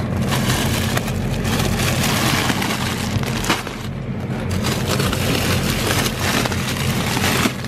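Plastic bags of frozen vegetables crinkling and rustling as they are handled and pulled from a freezer bin, over a steady low hum.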